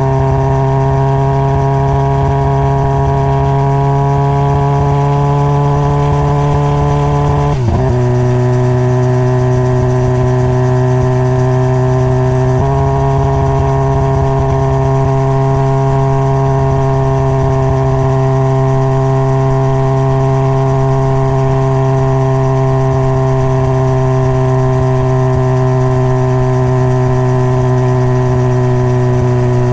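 Honda CBR600RR inline-four engine running at a steady cruise under way, heard from on board the motorcycle. The pitch dips sharply for a moment about seven or eight seconds in and steps down slightly near thirteen seconds, then holds steady.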